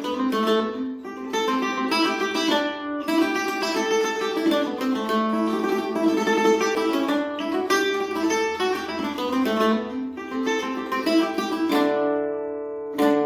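Weber Black Ice octave mandolin picking an Irish reel melody note by note over a steady ringing drone string. The melody stops on a held ringing chord a little before the end, then a final chord is struck near the end.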